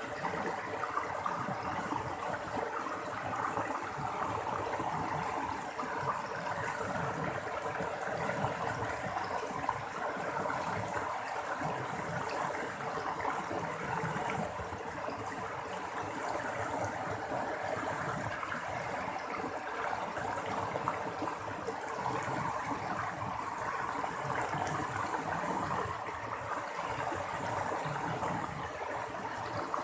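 Running water babbling and splashing steadily, an even rushing sound with no breaks.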